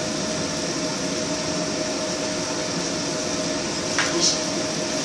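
A steady rushing, machine-like hum with one constant tone runs throughout, with a short clink about four seconds in.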